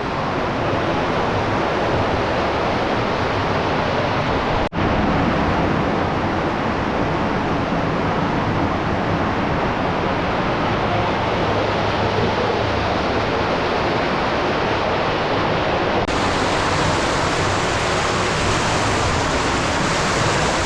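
Steady rushing of water from a cave stream and small waterfalls running over flowstone, close and loud, breaking off for an instant about five seconds in.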